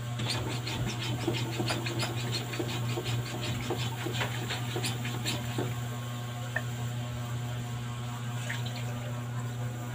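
Chicken pieces sizzling in oil in a wok, crackling densely for about the first half and then thinning out, over a steady low hum.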